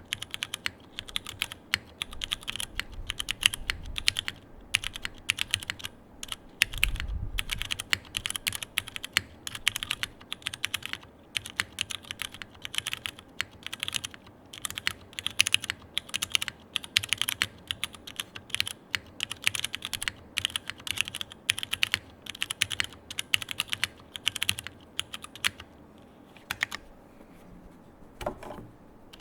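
Continuous fast typing on a gasket-mounted mechanical keyboard with stock Cherry MX2A Brown tactile switches, GMK keycaps and an aluminium plate, a dense stream of keystroke clacks. The typing thins to a few separate presses near the end.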